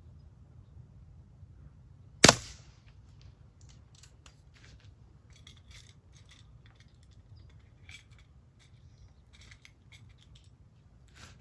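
A single sharp pop from a scoped Crosman 1377 American Classic .177 multi-pump pellet pistol firing, about two seconds in. It is followed by faint scattered ticks and a fainter snap near the end.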